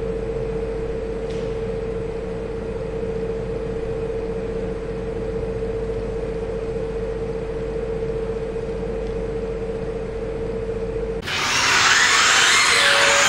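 Steady machine hum: one constant mid-pitched tone over a low rumble. About eleven seconds in it cuts abruptly to a louder, brighter, hissing sound.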